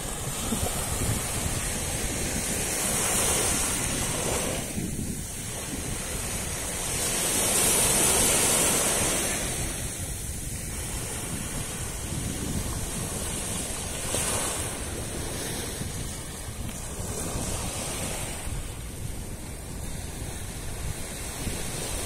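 Small sea waves breaking and washing up a sandy beach, the surf swelling and easing every few seconds, loudest about eight seconds in. Wind rumbles on the microphone underneath.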